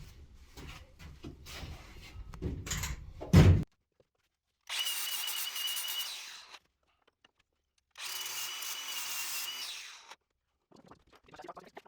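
Knocking and handling noises ending in a loud thump, then a small power tool sanding wood, switched on twice for about two seconds each with a steady high whine.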